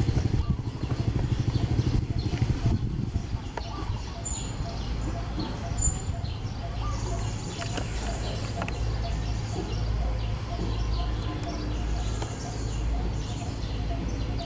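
Outdoor ambience: a steady low rumble, with short high bird chirps about four and six seconds in.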